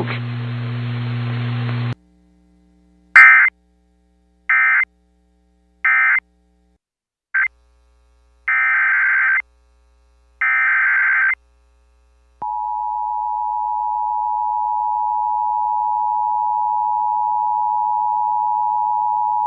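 NOAA Weather Radio emergency alert sequence. After a couple of seconds of radio hiss and hum, six short buzzing bursts of EAS digital header data sound, the last two about a second long. About twelve seconds in, the weather radio's steady single-pitch warning alarm tone begins and holds, announcing a new warning.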